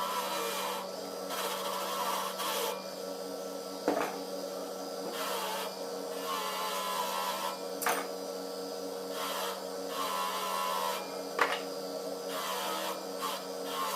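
Hand work on an alternator: repeated rubbing, scraping strokes of irregular length, with a few sharp clicks, over a steady hum.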